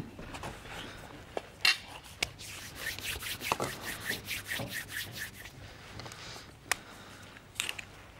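Food being worked by hand on a wooden chopping board: a knock, then about three seconds of quick rubbing or scraping strokes, about eight a second, followed by a couple of sharp knocks.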